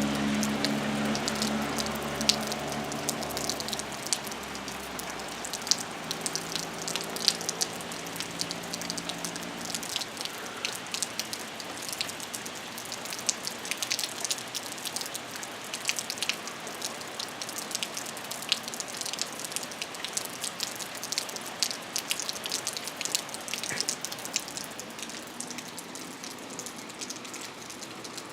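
Rain falling, with many sharp drops hitting nearby surfaces over a steady wash. A low, steady hum underlies it for the first few seconds and returns briefly from about six to ten seconds in.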